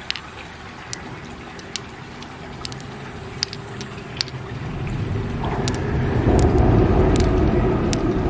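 Small sharp clicks of pearls knocking together as they are picked one by one from a river clam and dropped into a palm, about one click a second. A low rumble swells up in the second half and becomes the loudest sound.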